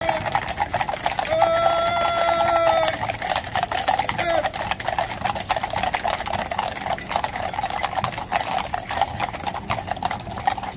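Shod hooves of a column of Household Cavalry black horses clip-clopping at a walk on a tarmac road, many overlapping hoof strikes. About a second in, a steady held note sounds for about a second and a half.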